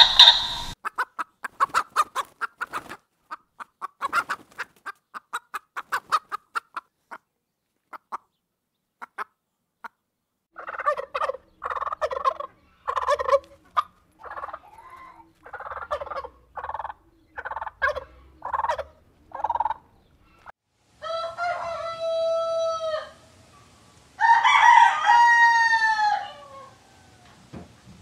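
Chickens clucking in quick runs of short calls, then a rooster crowing twice, each crow about two seconds long, near the end.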